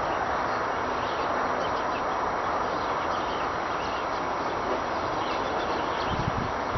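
Steady, even rushing noise like wind, though no wind is blowing. It is a constant sound heard for months, which the listener rules out as expressway traffic and whose source is unknown.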